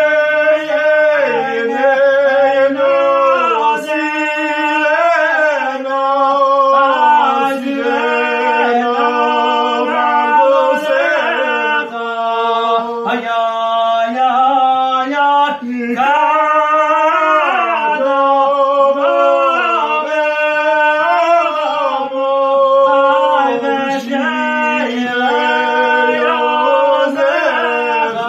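A man singing unaccompanied: a slow melody of long held notes that bend and turn, with short breaks between phrases.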